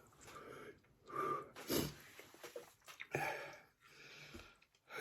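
A man breathing in sharp, noisy gasps and huffs, the loudest about two seconds in, as his mouth burns from eating extremely hot chillies.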